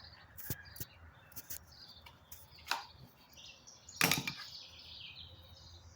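Scattered light clicks, knocks and scrapes of hands and tools working on a chainsaw's bar and fasteners, with a louder cluster of knocks about four seconds in.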